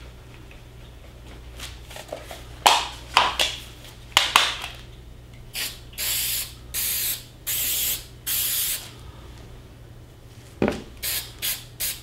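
Aerosol can of Krylon ColorMaster acrylic clear gloss: a few seconds in, a clattering rattle, typical of the can being shaken, then a series of short hissing sprays of about half a second each as light coats go on. One knock near the end, followed by more short sprays.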